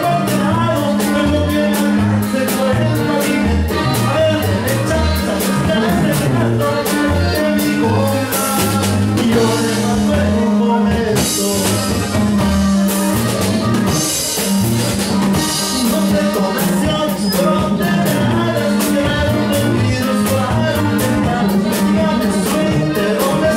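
A live band plays Latin music with a steady beat: repeating bass notes, guitar and drums, with singing at times.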